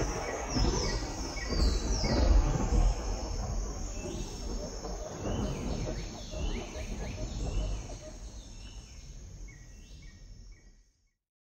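Outdoor-style ambience: a low rumble and hiss with many short, high chirps that fall in pitch, like birdsong. It fades steadily and cuts to silence about eleven seconds in.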